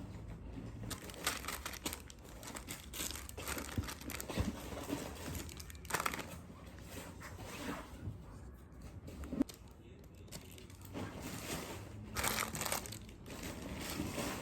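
Packaging crinkling and rustling in irregular bursts as bought items are handled and unwrapped, with a few tearing sounds.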